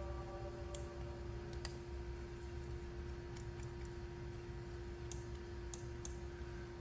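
Scattered light plastic clicks, about seven at uneven intervals, over a steady low hum with a constant faint tone.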